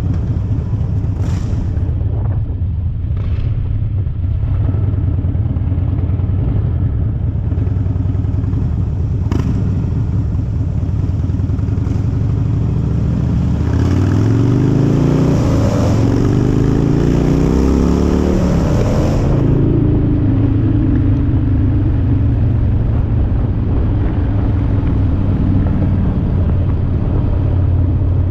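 Harley-Davidson V-twin with loud pipes idling, revved up twice about halfway through, then settling back to idle.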